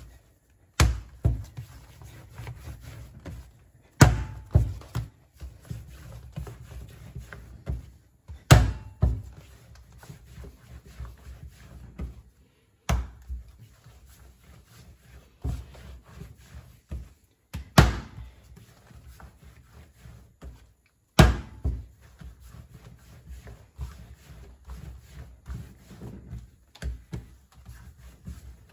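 Soft yeasted bun dough being slapped hard onto the work surface and folded over in slap-and-fold kneading: a loud thud every few seconds, with softer slaps and handling noises between.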